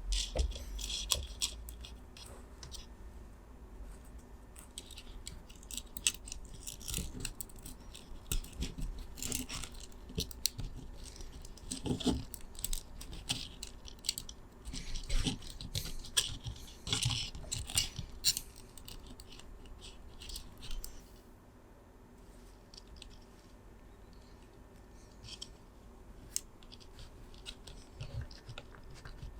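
Irregular clicks, taps and scrapes of small hard plastic and metal parts being handled and fitted together, in clusters with quieter gaps, thinning out in the last third.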